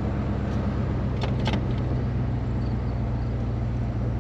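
Chevrolet El Camino's engine, fed by a freshly rebuilt Rochester Quadrajet four-barrel carburettor, idling steadily at a high idle with no throttle applied: the warm idle is set too high now that the vacuum leaks and blown gaskets are fixed. A couple of light clicks sound about a second and a half in.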